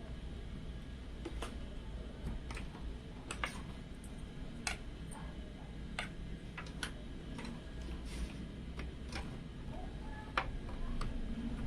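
Irregular light clicks and taps of computer parts being handled and fitted during a PC build, over a low steady hum.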